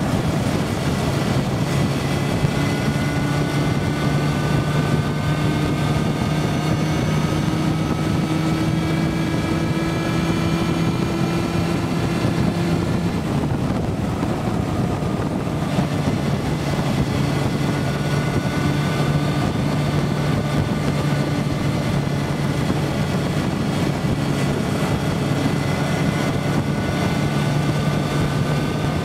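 Motorcycle engine running under way, heard from on the bike with wind rushing over the microphone. The engine note rises slowly as the bike gathers speed, eases off about halfway through, then picks up and rises again.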